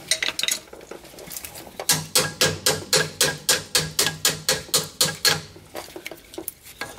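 Rapid metal-on-metal tapping, about four or five strikes a second for a few seconds, after a few scattered clicks: a steel screwdriver working the large clevis pin out of the slack adjuster and brake chamber pushrod yoke.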